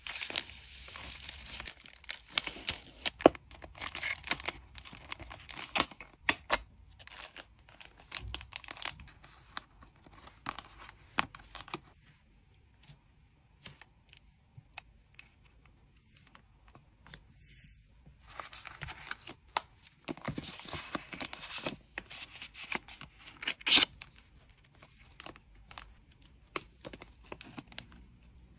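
Plastic packaging crinkling and tearing as hands pack an order, in stretches of rustling dotted with sharp clicks and taps, with a quieter spell of several seconds in the middle.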